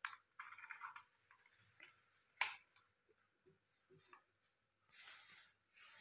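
Faint handling sounds of a mains plug and a clamp meter being set up at a power strip: small scattered clicks and rustles, with one sharp click about two and a half seconds in.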